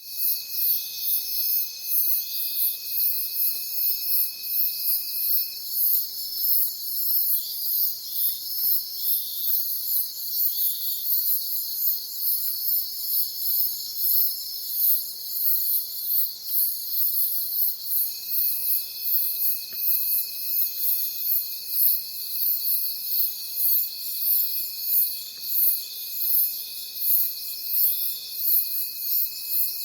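Insect chorus, a continuous high-pitched chirring that pulses about one and a half times a second, with a thinner steady whine that drops out about five seconds in and comes back around eighteen seconds in.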